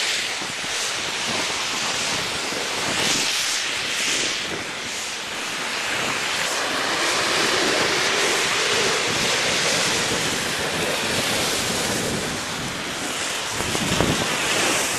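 Steady rush of wind over the microphone and a snowboard sliding over snow on a downhill run, with a thump near the end.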